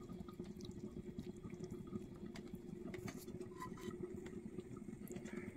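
Faint soft wet pattering and squishing of fingers pressing and rubbing masala paste into scored Indian mackerel pieces on a plate, over a steady low hum.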